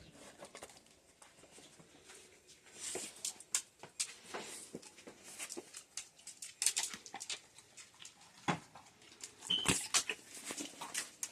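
Dog chewing and crunching hard treats: irregular crackling crunches, with a brief high whine near the end.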